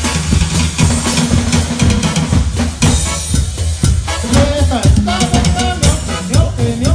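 Live band playing dance music: a steady drum-kit beat with bass drum and bass, and a melody line coming in about four seconds in.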